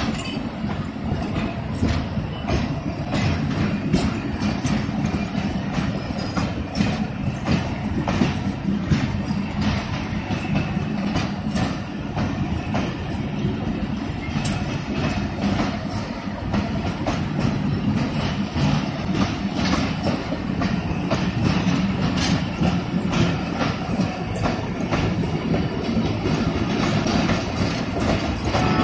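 Pakistan Railways passenger coaches rolling past close by: a steady rumble of steel wheels on rail with a continual irregular clickety-clack and clatter.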